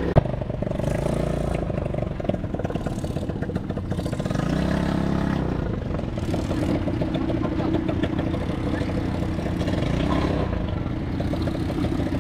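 ATV engines running and revving, their pitch rising and falling as the quads move off. A single sharp knock comes just after the start.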